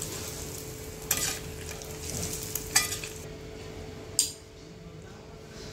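A metal spoon scraping and clinking against a pot three times, about 1, 3 and 4 seconds in, as browned fried onions are spread over cooked biryani rice, over a faint sizzling hiss.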